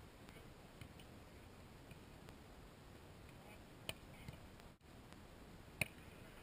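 Two sharp slaps of a hand striking a beach volleyball, a faint one about four seconds in and a louder one near the end, over near-silent background hiss.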